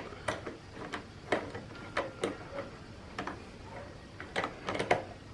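Sharp, irregular clicks of a hand tool fitted with a T30 Torx bit working a fastener loose, about a dozen over a few seconds with a quick cluster near the end.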